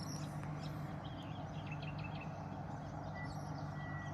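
Quiet outdoor ambience: a steady low machine-like hum underneath faint bird chirps, with a thin high whistle near the end.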